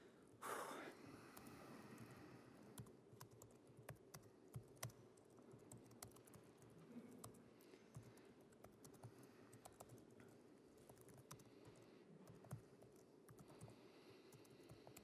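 Faint laptop keyboard typing: irregular keystroke clicks as code is typed, over a low room hum, with a brief louder noise just after the start.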